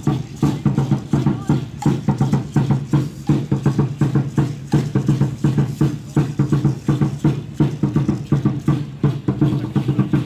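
Aztec dance drum beating a fast, even rhythm, about four strokes a second, with the dancers' leg rattles shaking in time.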